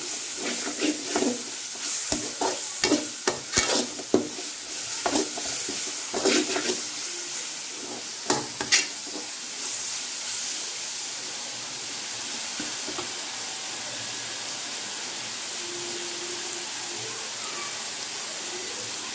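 Onions and ginger-garlic paste frying in oil in a wide metal pan, sizzling steadily while a perforated metal ladle stirs and scrapes against the pan. The scraping strokes stop about nine seconds in, leaving only the sizzle.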